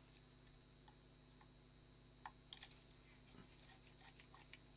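Near silence broken by a few faint, light clicks, the clearest about halfway through: small screws and hand tools being handled while an Olympus PEN F camera's covers are unscrewed.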